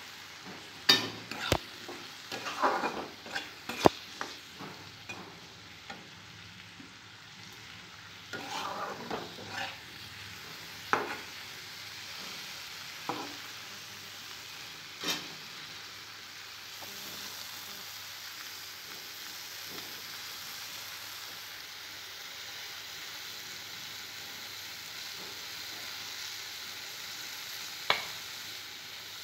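Yardlong beans and potato pieces frying in oil in a wok, with a utensil scraping and knocking against the pan as they are stirred through the first half. After that a steady sizzle, with one more sharp clack near the end.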